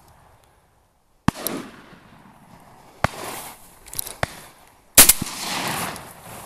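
Gunshots, most likely a shotgun fired at ducks. A loud shot comes about a second in, sharper cracks follow around three and four seconds, and the loudest shot lands about five seconds in. Each trails off briefly.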